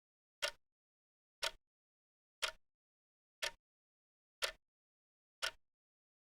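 Countdown timer's clock-tick sound effect: one short, sharp tick each second, six ticks, with dead silence between them.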